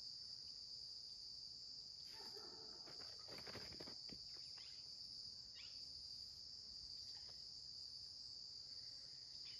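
Steady, high-pitched chorus of insects buzzing without a break, with a few faint rustles and clicks a few seconds in.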